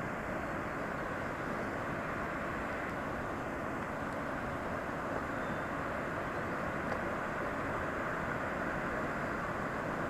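Waterfall of glacial meltwater plunging down a rock cliff: a steady, even rush of falling water heard from across the valley.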